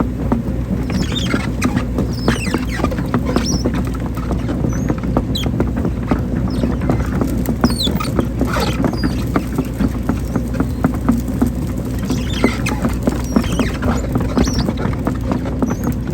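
Hydraulic excavator at work: its diesel engine running steadily with a low hum, while frequent clicks and short high-pitched squeaks come from the machine as it digs.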